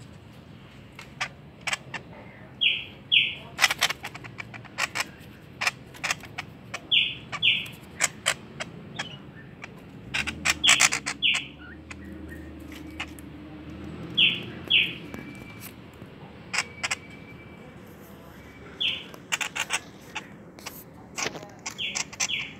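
Pet songbird chirping, giving pairs of short high notes every few seconds, among many sharp clicks.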